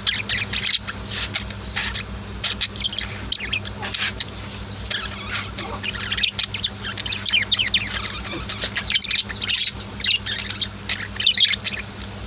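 Pet budgerigars and lovebirds chirping in a cage: a busy stream of rapid, high chirps and short squawks from several birds, over a steady low hum.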